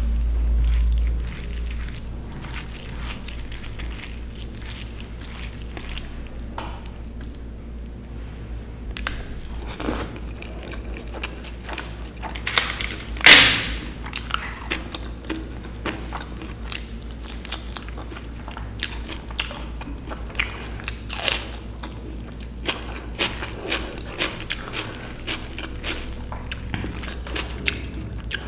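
Close-miked eating of dal and rice: chewing and biting with many small scattered clicks and crunches. A low rumble fills the first second or so, and one much louder noise comes about thirteen seconds in.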